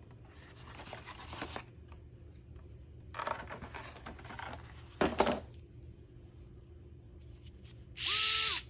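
Packaging being handled, rustling and scraping in bursts, with a sharp knock about five seconds in. Near the end the Vessel 220USB-P1 electric ball grip screwdriver's motor runs briefly: a whine that spins up, holds for about half a second and winds down.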